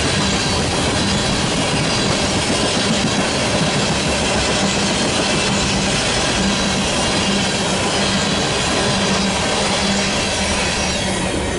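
Empty railroad tank cars of a freight train rolling past, wheels on the rails making a loud, steady rolling noise with a faint steady squeal. A covered hopper buffer car is last by near the end.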